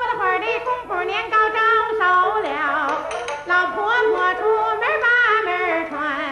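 A woman singing a Chinese folk story-song in Mandarin, gliding between notes and wavering with vibrato on the held ones.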